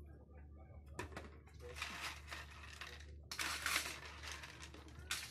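Fish being shifted and handled inside a plastic cooler: rustling and scraping of the fish against each other and the cooler's plastic walls, starting about a second in and loudest for about a second in the middle.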